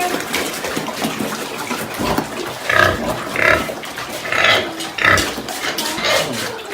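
Pigs squealing in a string of short cries, packed close together from about two seconds in: hungry pigs in their pens at feeding time.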